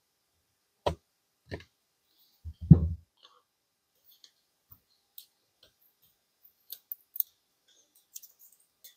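Aluminum foil tape being pressed and smoothed into a rifle stock's action-block recess. A few knocks on the stock come in the first three seconds, the loudest with a dull thump near three seconds in, followed by light crinkling clicks of the foil.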